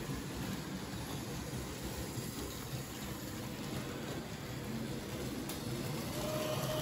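Märklin H0 model trains running: a steady rumble of wheels rolling on metal track, with motor hum. A steady higher tone joins near the end.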